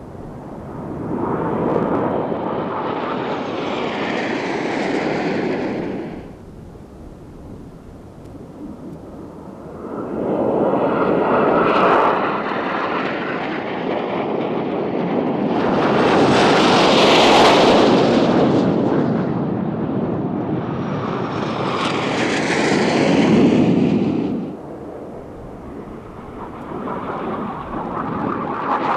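Aermacchi MB-339 jet trainers flying formation passes, a jet roar that swells and fades several times and builds again near the end.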